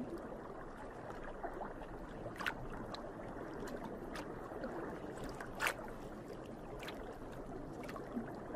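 Underwater water ambience: a steady low watery hiss with a few faint clicks, twice a little louder.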